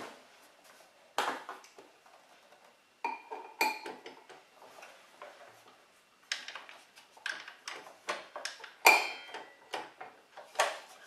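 Metal clinks and knocks of a small wrench working the arbor nut of a miter saw blade while the blade lock is held in, trying to loosen the reverse-threaded nut. Scattered sharp clicks, a few ringing briefly, the loudest about nine seconds in.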